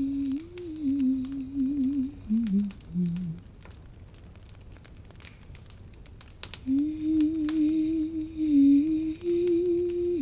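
A woman humming a wordless melody close to the microphone, her pitch wavering up and down; she stops for about three seconds in the middle, then hums again.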